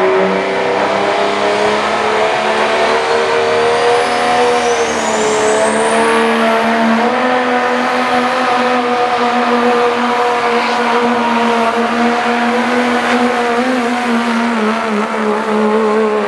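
Diesel four-wheel-drive pickup truck's engine at full throttle, held at high revs while it pulls a weight-transfer sled. The pitch sags briefly about four seconds in and then recovers. A high whistle climbs in pitch over the following few seconds.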